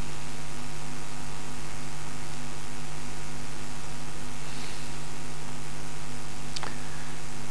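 Steady electrical mains hum with hiss from the microphone and sound system, at an even level, with one faint click near the end.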